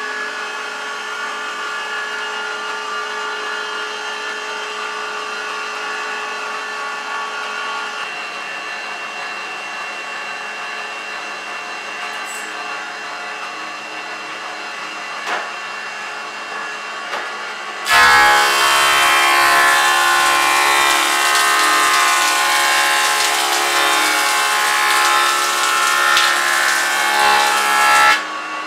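Electric wood thickness planer running unloaded with a steady whine. About 18 seconds in, a plank is fed through and the cutter head planes it with a much louder rasping cutting noise for about ten seconds, then the machine drops back to its free-running whine.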